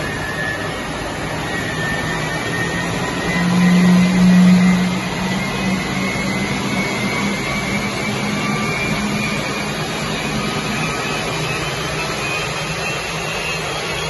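Westinghouse J34 turbojet engine running on a test stand: a steady roar with a high compressor whine that slowly rises in pitch as the engine speeds up, over a low steady hum.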